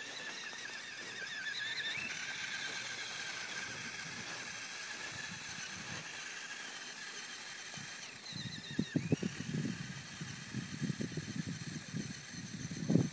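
High, wavering whine of the electric drive motors of a small tracked robot vehicle running over snow. From about eight seconds in, irregular low thumping and rumbling comes in on top and grows louder near the end.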